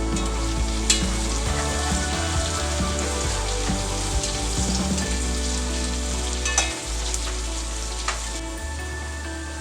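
Celery, onion and garlic sautéing in butter in a pot, with a steady sizzle. A spoon stirs them and clinks against the pot a few times.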